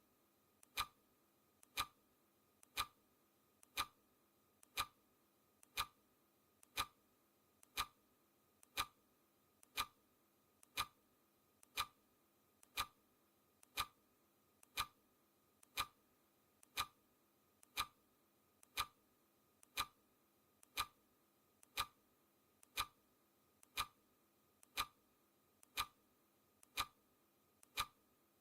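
Clock ticking sound effect, one tick each second, each tick a faint click followed closely by a louder one.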